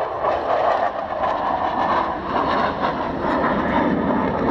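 Jet aircraft flying a display pass overhead: its engine noise is a steady rush.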